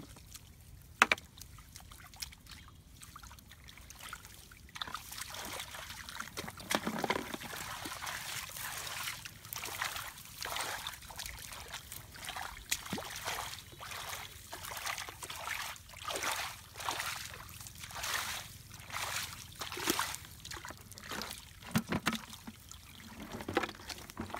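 Muddy water splashing and sloshing in repeated strokes, about one a second, as mud is dug and scooped in a shallow pool by hand and hoe. It is quiet for the first few seconds before the splashing starts.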